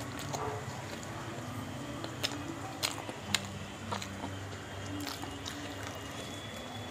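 Close-miked eating of chole bhature by hand: chewing and wet mouth sounds with a few sharp clicks and smacks, over a steady low hum.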